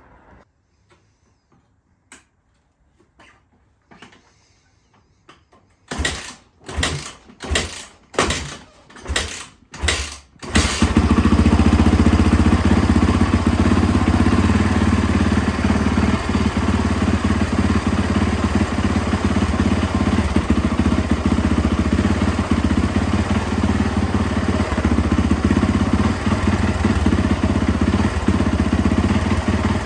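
2012 Yamaha YZ450F's single-cylinder four-stroke engine being turned over, about seven loud strokes in quick succession, then catching about ten seconds in and running steadily on its newly fitted timing chain. A few faint clicks come before it.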